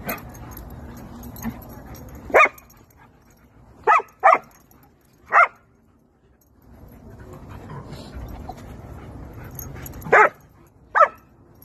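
A dog barking during rough play with other dogs: six short, sharp barks, spaced unevenly, with a quick pair about four seconds in and another two near the end.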